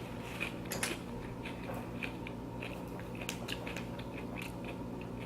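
A person chewing a mouthful of loaded nachos close to the microphone: many small, irregular crunches and mouth clicks from the tortilla chips.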